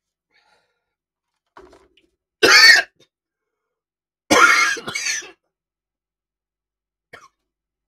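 A man coughing and clearing his throat, his throat set off by the heat of hot chilli ramen broth: one sharp cough about two and a half seconds in, then a longer double cough a couple of seconds later.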